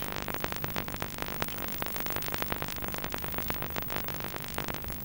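Synthesizer background music with a dense, steady texture.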